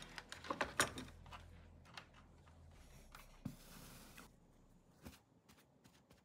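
Light handling clicks and taps from small plastic and metal parts: a quick run of clicks in the first second, then a few scattered soft ticks.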